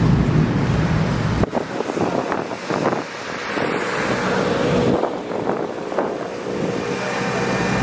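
Car engines and exhausts running as customised cars drive past, with wind buffeting the microphone. A heavy low rumble cuts off abruptly about a second and a half in, and a quieter engine hum returns near the end.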